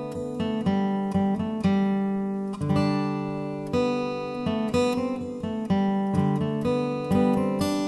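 Background music on acoustic guitar: plucked notes and chords ringing out, about two a second.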